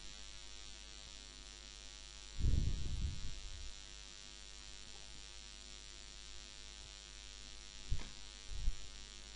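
Steady electrical hum with faint hiss from the recording microphone. About two and a half seconds in there is a low, muffled rumble lasting about a second, and near the end two short soft knocks.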